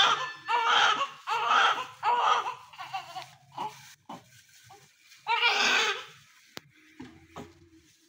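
Newborn baby crying: a run of short cries about one a second that fade out after about three seconds, then after a pause one longer loud cry about five seconds in.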